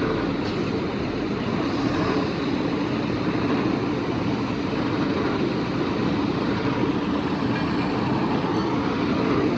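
Steady vehicle noise, an even rumble with a faint hum, unchanging throughout.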